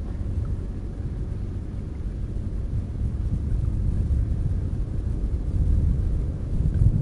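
Strong wind buffeting the chest-mounted action camera's microphone: a low, uneven rumble that swells in gusts, loudest near the end.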